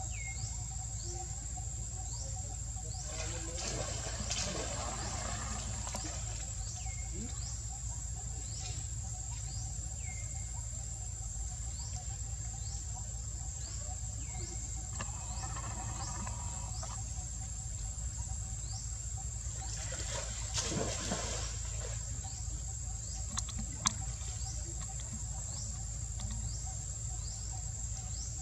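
Outdoor ambience of insects: a steady high-pitched drone with a short falling chirp repeating about once a second. A few louder noisy bursts stand out, the strongest about two-thirds of the way through.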